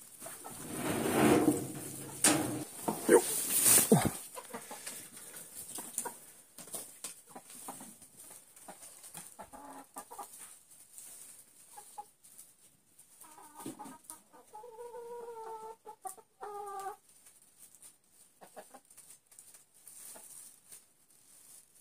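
Domestic hens clucking over a pile of canola greens, with a few drawn-out calls in the second half and light pecking and rustling between them. A loud rustling clatter fills the first few seconds.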